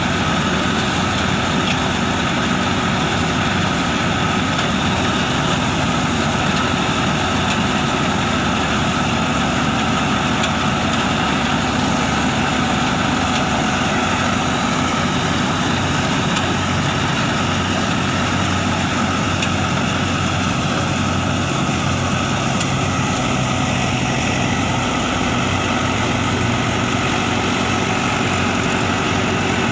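Wheat harvester's engine running steadily: a constant, even machine drone with a low hum that does not change.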